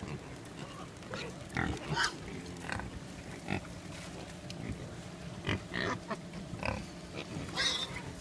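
A herd of wild boars grunting in many short calls, with one higher, shriller call near the end.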